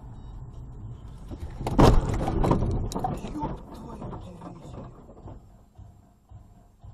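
Car crash heard from inside the dashcam car: a loud impact about two seconds in, followed by a few seconds of rattling and crunching that dies away, over steady cabin road noise.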